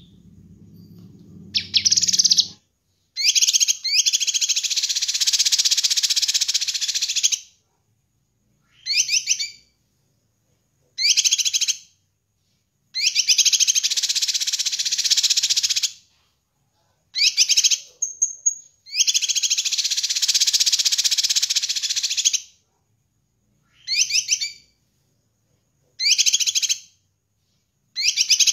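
Caged cucak kinoi, a leafbird, singing in bursts: rapid, chattering high-pitched phrases, some short and some running three or four seconds, broken by short pauses. A brief clear whistle comes a little past halfway.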